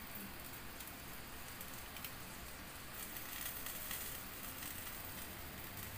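Slices of pork and beef bacon and shrimp sizzling on an electric tabletop grill: a faint, steady hiss with occasional small crackles.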